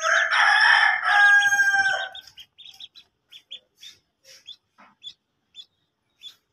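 A rooster crows once, loud and harsh, for about two seconds at the start. Then ducklings peep in short, faint, scattered calls.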